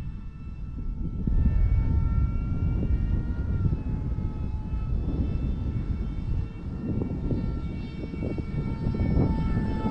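The twin five-bladed electric ducted fans of a Dynam A-10 RC jet whining in flight with a vacuum-cleaner-like sound, a steady whine of several tones that dips slightly in pitch about a third of the way in. Wind rumbles on the microphone underneath.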